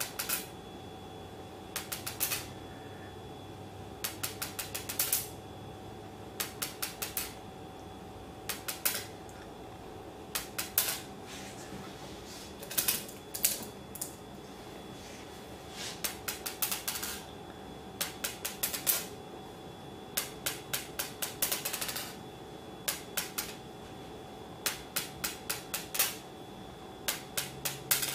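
Buckyball neodymium magnet spheres dropped onto a granite counter, each bouncing in a short run of hard clicks. The runs come every second or two, over a faint steady hum.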